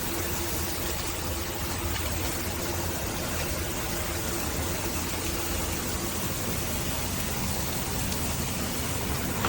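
Water spraying steadily from a handheld and rain shower head, a constant hiss of running water with no breaks.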